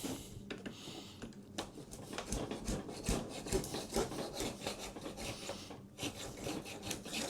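Spline roller pressing rubber spline and screen mesh into the groove of a window screen frame: irregular rubbing and scraping with small clicks.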